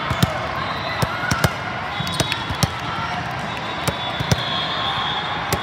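Volleyballs being hit and bouncing on the hall's courts: a scatter of sharp, irregular smacks over a steady din of crowd chatter.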